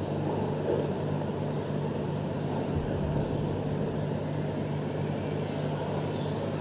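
Steady low hum with an even rushing noise, the sound of air conditioning running in a large room.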